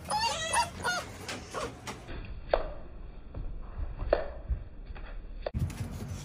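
Bully-breed puppies whining and yipping: a run of high squeals in the first second, then a few short, sharp yelps that drop in pitch.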